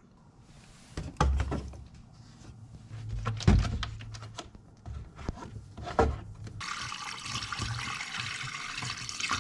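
Windshield washer fluid being poured from a plastic jug into a 2019 Tesla Model 3's washer fluid reservoir: a steady liquid pour begins about two thirds in and runs on. Before it come scattered knocks and thumps as the jug is handled and its cap is opened, the loudest a thump in the middle.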